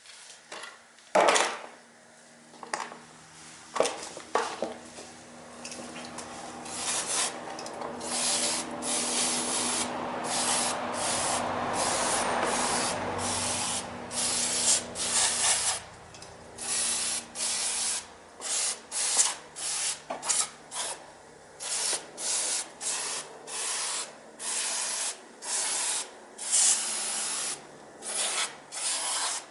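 Rhythmic hand rubbing strokes, about one and a half a second, on the engine parts during a tappet cover gasket job. They come after a few sharp knocks near the start and a long unbroken stretch of rubbing in the middle.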